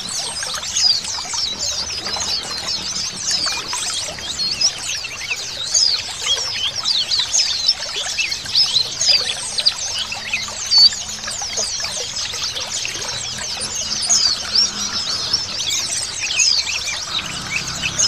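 A flock of white-eyes (pleci, Zosterops) chirping and twittering together, many rapid high chirps overlapping without pause, over a steady trickle of running water.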